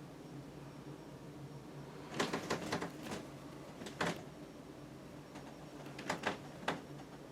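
Casablanca ceiling fan's K63 motor giving a faint, steady low hum, broken by several clusters of sharp clicks and knocks: a group about two seconds in, a single click near the middle, and another group near the end.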